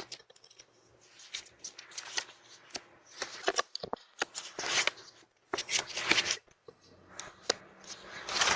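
Irregular rustling and scraping noises in quick, uneven bursts, loudest in the second half.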